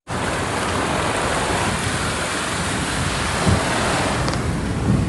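Floodwater rushing in heavy rain: a loud, steady rush of water noise, with one small knock about halfway through.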